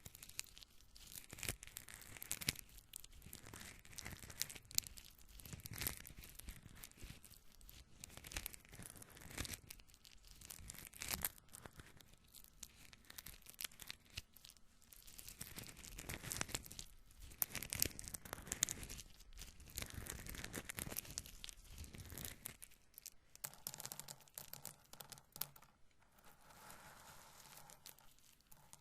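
Roasted corn kernels being handled and rubbed together between the fingers: a dense dry crackling and rustling of many tiny clicks that rises and falls in swells every few seconds.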